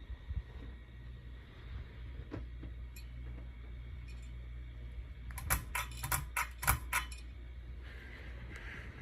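A quick run of about eight sharp clicks over roughly a second and a half, of the kind a ceiling fan's pull-chain switch makes when it is worked, over a steady low hum.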